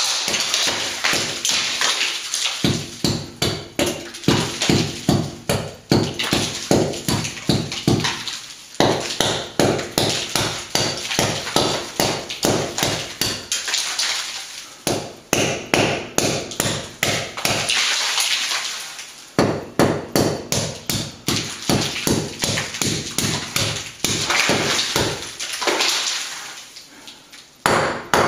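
Hammer repeatedly striking a plaster ceiling over a cement slab, chipping plaster away in quick runs of several blows a second with short pauses between runs.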